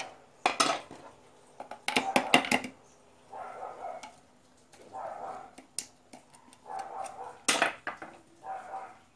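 Metal tool clinking and scraping against the electric blower motor's stator and bearing seat: a run of sharp metallic clicks, bunched together about two seconds in, then single ones.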